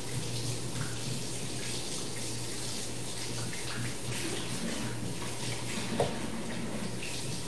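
Kitchen faucet running steadily while the blender's tamper is rinsed under it. There is a single light knock about six seconds in.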